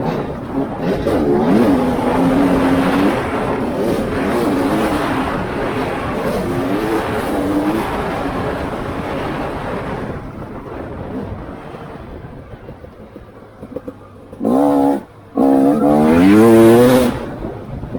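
Off-road vehicle's engine under varying throttle on a trail ride, revving up and down, easing off to a low, quieter running about ten seconds in, then a few sharp revs near the end.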